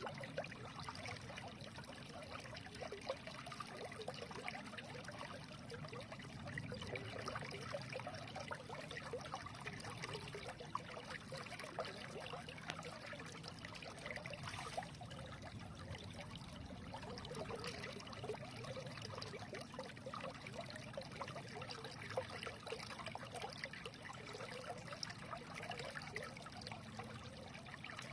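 Stream water running and trickling steadily, with many small gurgles and splashes.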